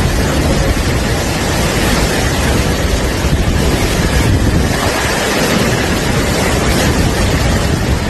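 Strong storm wind blowing steadily, with heavy wind rumble buffeting the microphone.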